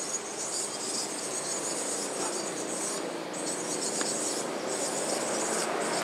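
Insects buzzing in a high-pitched drone that breaks off every second or so, over steady outdoor background noise.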